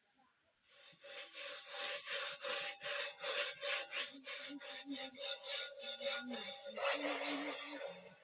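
Rhythmic rubbing or scraping strokes, about three a second, starting about a second in and stopping near the end.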